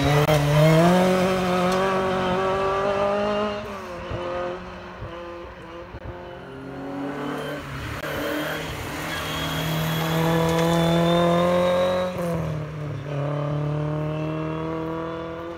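Historic rally car engines at full throttle on a gravel stage. A Mk1 Ford Escort's engine climbs in pitch, then drops sharply about four seconds in. A second car's engine climbs steadily from about eight seconds and cuts back sharply around twelve seconds.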